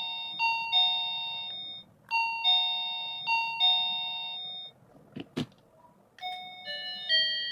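Battery-powered wireless doorbell receiver sounding its electronic two-note ding-dong chime, high note then low, several times over. About five seconds in come two short clicks, then a different tune of several chime notes near the end: one of the bell's selectable melodies.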